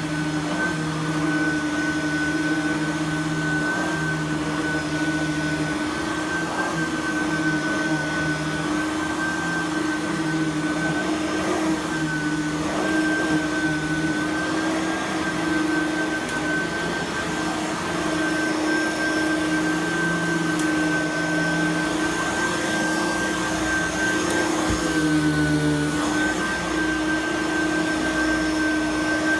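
Simplicity Freedom lightweight direct-air upright vacuum running steadily on carpet, with a constant high whine over its motor hum and small shifts in pitch as it is pushed back and forth.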